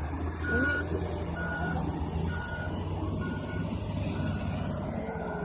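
Construction vehicle's back-up alarm beeping at an even pace, about one beep a second, six times, over the low rumble of its diesel engine as it reverses.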